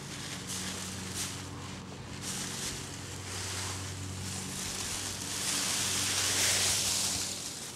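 Dry fallen leaves rustling and crackling as a cat burrows through a leaf pile, in several brushy bursts that grow loudest a little past halfway, when the cat dives in head-first. A faint steady low hum runs underneath.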